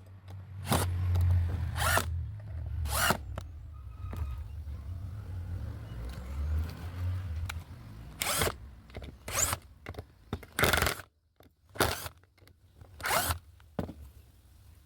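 Bosch GDR 120-Li 12 V cordless impact driver driving 1.5-inch gypsum screws into wood at speed level 2. A low motor hum runs for about the first half, and a series of short, sharp bursts about a second apart comes near the start and again in the second half.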